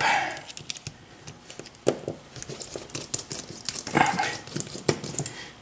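Light, irregular clicks and taps of a pin-tumbler lock cylinder and picking tools being handled, with a few louder knocks about two, four and five seconds in.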